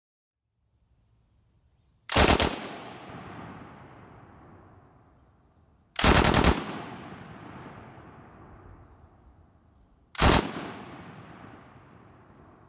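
Soviet Degtyaryov DP-27/DP-28 light machine gun, chambered in 7.62×54mmR, firing three short bursts about four seconds apart, the first about two seconds in. Each burst is a quick string of a few shots, followed by a long echo fading away.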